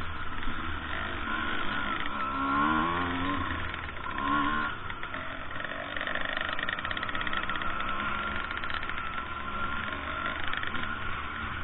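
Two-stroke enduro motorcycle engines running on a dirt trail, the revs rising briefly about two and a half seconds in and again around four seconds, then holding steadier, over a low rumble.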